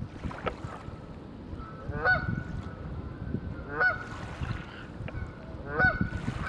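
Canada geese honking: three loud honks about two seconds apart, with fainter calls between, over a low wind rumble on the microphone.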